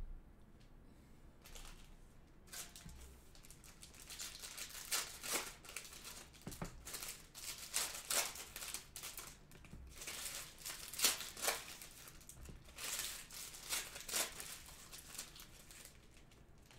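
Foil trading-card pack wrappers being torn open and crinkled by hand: an irregular run of crackling rips and rustles that starts about a second and a half in and is busiest in the middle.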